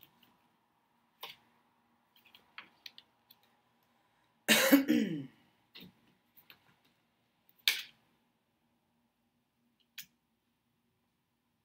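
Tarot cards being drawn and laid on a wooden desk: scattered soft taps and clicks. A little before halfway, a short throat-clearing, the loudest sound. A brief sharp rustle follows a few seconds later.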